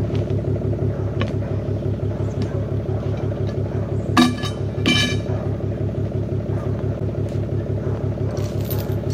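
An engine idling steadily with an even pulsing throb. Two sharp metallic clanks about four and five seconds in, from the steel hook of a cant hook used to roll pine logs.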